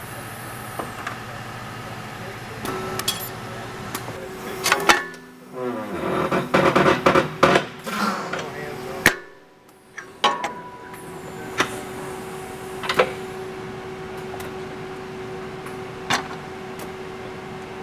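Automated assembly-line machinery running: a steady hum with scattered sharp clacks and knocks of tooling, and a busy clatter of knocks about five to eight seconds in.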